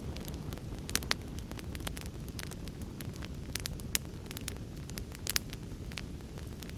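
Wood fire crackling in a fireplace: sharp snaps and pops scattered over a steady low rumble of the flames, with a few louder pops, two in quick succession about a second in.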